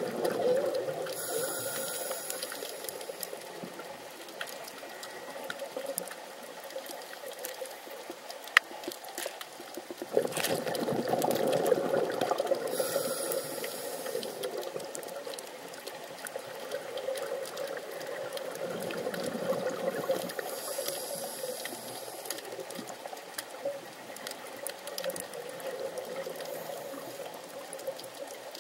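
Underwater sound picked up through a camera housing: a steady muffled wash of water, with a scuba diver's exhaled regulator bubbles rising in bursts every eight to ten seconds. One sharp click about eight seconds in.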